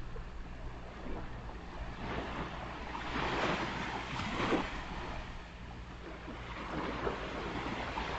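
Ocean surf: a wave breaks and washes up the beach, swelling to its loudest about three to four and a half seconds in and then easing back, over a low steady rumble of wind on the microphone.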